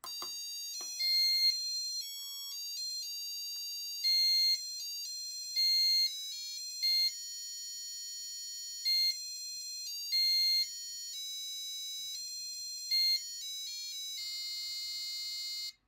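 Laser harp kit's on-board buzzer, driven by its STC89C52 microcontroller, playing a preset tune in auto mode: a melody of electronic beeping notes stepping up and down in pitch, with a few louder low notes. It cuts off suddenly near the end.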